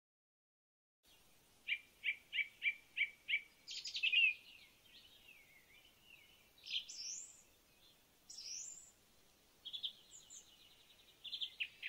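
Birds singing, starting about a second in: first a quick run of six repeated chirps, then a mix of whistles, rising calls and a rapid trill.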